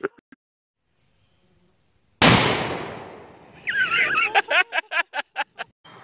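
One loud blast about two seconds in, its rumble dying away over a second and a half, then a high wavering cry and a quick run of short sharp sounds, about five a second.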